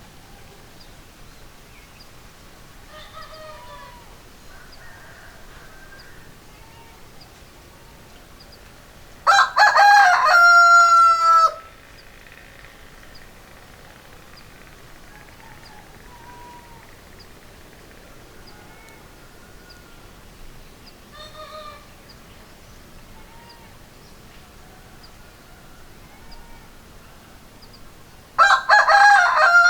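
Rooster crowing twice: a loud cock-a-doodle-doo of about two seconds some nine seconds in, and another starting near the end, with a few softer chicken calls in between.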